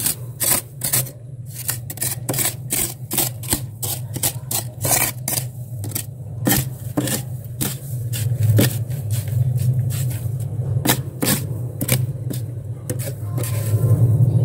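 A steel glass scraped repeatedly across thick, flaky freezer frost, about two to three short gritty strokes a second. A steady low hum runs underneath.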